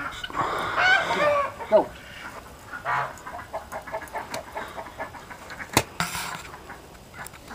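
Domestic poultry calling: loud honking and clucking calls in the first two seconds, then a run of quicker, softer short calls. A single sharp knock about six seconds in.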